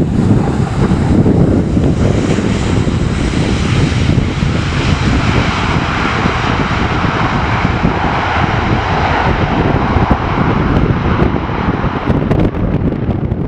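Jet engines of a Boeing 737 running at high power as the airliner rolls down the runway, a steady loud rushing that begins to fade near the end as the aircraft moves away.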